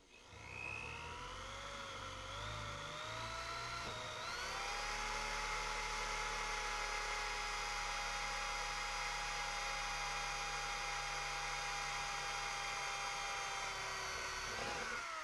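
Electric drill with a hole saw cutting a spigot hole through the wall of a plastic rain barrel. The motor's whine climbs and wavers for the first few seconds, then holds at a steady high pitch, and shortly before the end it stops and spins down as the cut comes through clean.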